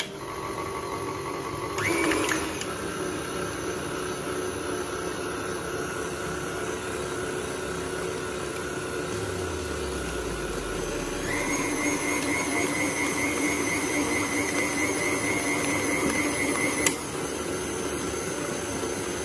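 KitchenAid tilt-head stand mixer running, its flat beater mixing eggs and sugar in the steel bowl: a steady motor whine and gear hum. About eleven seconds in a higher tone joins the whine, and it drops away with a click near the end.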